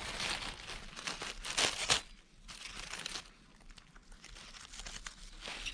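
Dry fallen leaves rustling and crackling in the forest litter as a hand and knife work in among them, in irregular bursts that are busiest in the first two seconds and then thin out.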